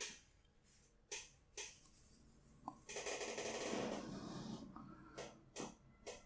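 A barber's hands at work during a head and body massage: about six short sharp snaps of skin and hair being worked, and in the middle a stretch of rubbing noise lasting about a second and a half.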